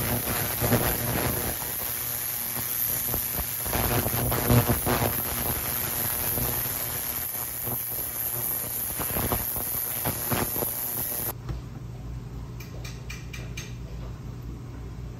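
Jewellery ultrasonic cleaner running, its stainless tank of cleaning solution giving a steady high-pitched hiss over a low electrical hum. The hiss cuts off suddenly about eleven seconds in, leaving faint hum and a few light clicks.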